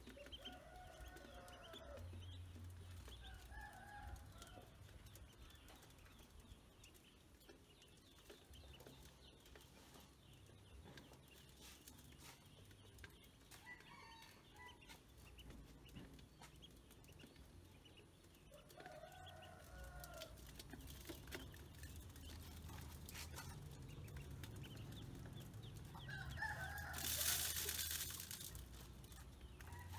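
Chickens clucking and a rooster crowing every few seconds, faint, over a quiet yard. Near the end comes a louder rattling hiss lasting about a second, as feed grains are poured into the metal basin.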